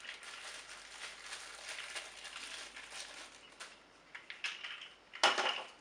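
Faint rustling and light ticks from plastic parts and packaging being handled, with one sharp knock about five seconds in.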